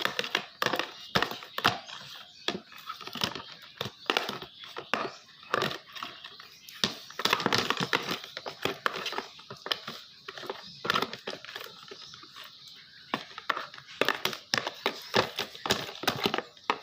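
Sticky glue slime being stirred in a container right after activator is added, giving a continuous run of irregular wet clicks, pops and crackles as the mixture pulls and squelches.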